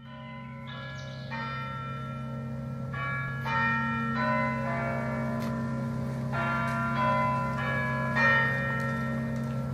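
Bells ringing, a run of different notes struck one after another, each ringing on, over a steady low hum.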